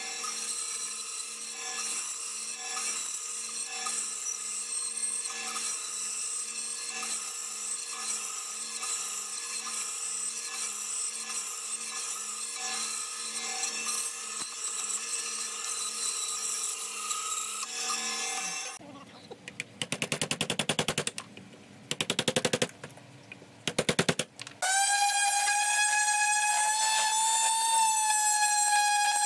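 A small bench saw with a thin vertical blade cutting a wooden block, running with a steady, slowly pulsing hum. About two-thirds through it gives way to three short spells of rapid clattering, and then an electric orbital sander starts a steady whine on the wood.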